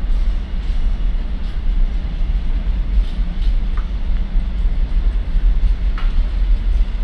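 Container freight wagons rolling past on the rails, a steady low rumble with a few faint clicks from the wheels.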